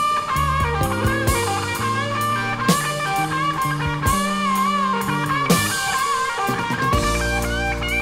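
Blues-rock music played from a vinyl record: an electric guitar lead with bent, wavering sustained notes over bass and drums.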